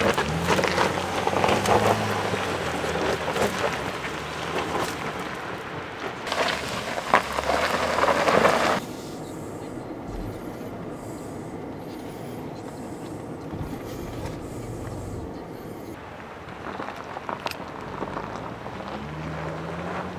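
Mercedes GLE crawling over loose gravel, its tyres crunching with the engine running low underneath. About nine seconds in the noise cuts to a quieter, steady low drone: engine and road noise heard inside the cabin.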